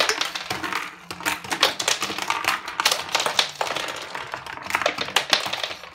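Rapid, irregular clatter of small plastic toy animal figurines being knocked over and tumbling against each other on a hard tabletop as a toy truck is pushed through them.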